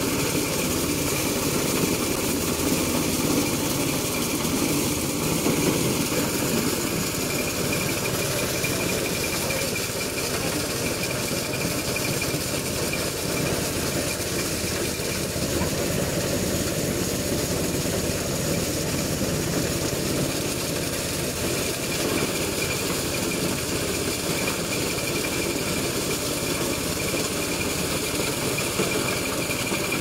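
Maize sheller driven by a small stationary engine, running steadily with an even mechanical drone.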